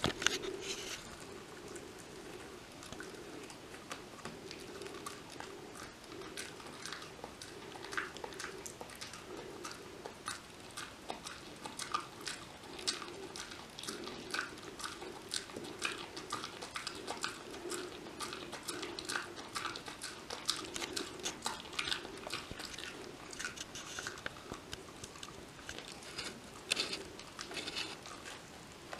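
A Kai Ken dog munching a Purina DentaLife dental chew: irregular crunching bites and clicks of teeth on the chew throughout.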